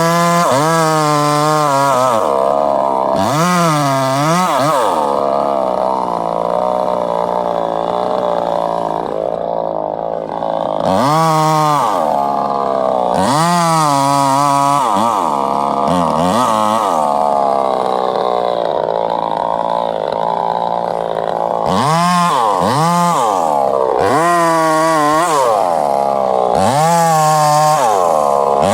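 Chainsaw engine revved up and down again and again while cutting wood, with steadier stretches of running in between.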